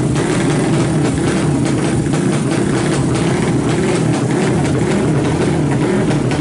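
Loud open-exhaust four-stroke drag-bike engine, a Honda Supra bored up to 200 cc with a big carburettor, idling roughly, its pitch wavering up and down.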